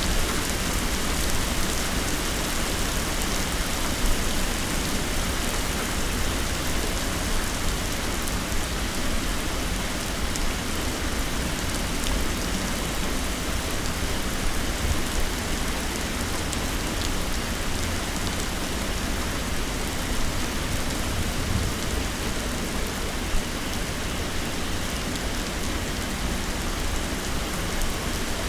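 Heavy rain pouring steadily, a dense even hiss with many small drop impacts.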